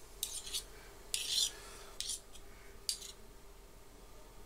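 Metal spoon scraping and rubbing against a dish while spreading cream over a cheesecake base, in a few short strokes, the longest about a second in.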